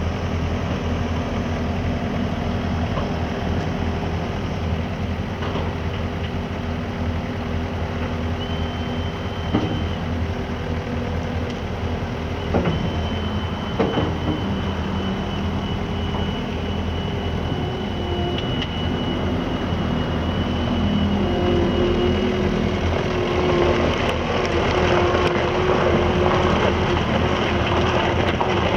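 John Deere skid steer's engine running steadily, with a thin high whine held through the middle and a few sharp clunks around the middle; the engine gets louder and rougher over the last several seconds.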